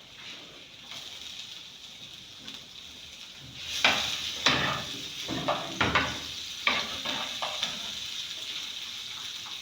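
Onions going into hot oil in a non-stick pan: a faint sizzle swells into louder frying about three and a half seconds in, with several sharp clacks of a cooking spoon against the pan as they are stirred, then settles into a steady sizzle.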